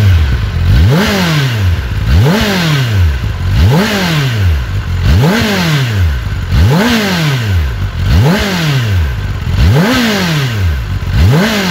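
Kawasaki Ninja ZX-10R's inline-four on its stock exhaust, revved from idle to around 6,000–7,000 rpm and let fall back, over and over: about eight even blips, one every second and a half.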